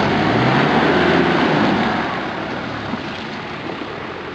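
Off-road 4x4 SUV's engine pulling under throttle as it drives past close by, over a rushing of tyres through wet mud and water. The noise is loudest in the first two seconds, then fades away.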